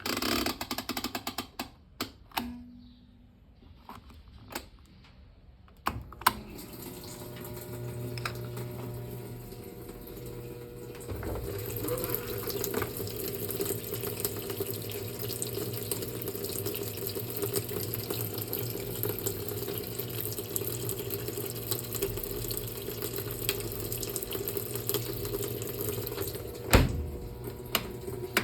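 Brastemp Clean washing machine filling with water at the start of a wash cycle. After a few sharp clicks, water starts rushing in steadily with a hum at about six seconds and grows fuller a few seconds later. There is one sharp click near the end.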